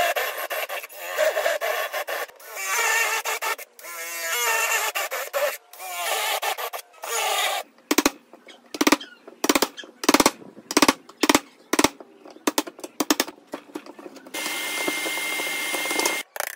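Cordless drill boring into pine with a spade bit, the motor whirring as the bit cuts. Then about a dozen sharp knocks, roughly two a second, of a mallet driving a chisel into the wood to chop out a mortise. Near the end there is a short steady hiss with a thin high tone.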